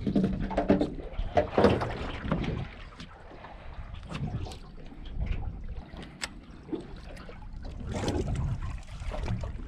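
Water lapping and slapping against the hull of a drifting boat, in irregular swells, with a few sharp clicks or knocks.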